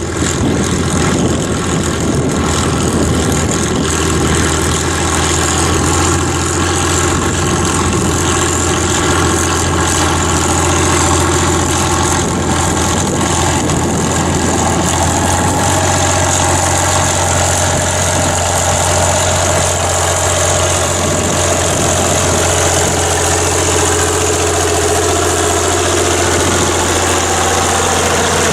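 Diesel tractor engine running steadily under load while pulling a plough, with a little change in its note partway through.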